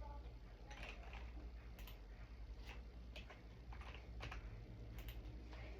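Faint, scattered light clicks at uneven intervals, about one or two a second, over a steady low hum.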